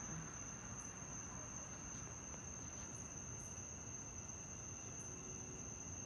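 Crickets chirping in a steady, continuous high-pitched trill, over a low background hiss.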